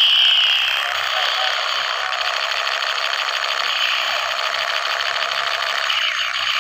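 Electronic firing sound effect of a battery-powered toy gun: a loud, rapid buzzing rattle. It opens with a falling electronic tone.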